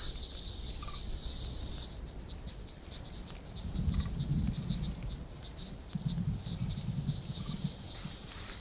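Insects chirping and trilling without pause in a tropical forest, with a low rumble rising and falling underneath twice.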